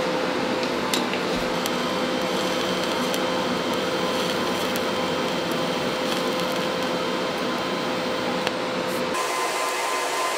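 TIG welding arc on metal tubing: a steady hiss with a thin high hum and a few faint ticks. About nine seconds in, the low part drops out and the hum shifts higher.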